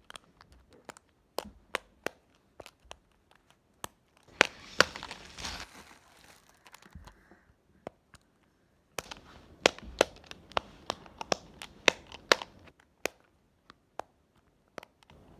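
Triple dimple fidget toy being played with: its silicone dimples pushed in and out, giving a long irregular string of sharp pops and clicks. A stretch of crinkly rustling handling noise runs from about a third of the way in to about halfway.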